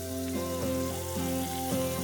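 Background instrumental music with a held bass note and a slow melody.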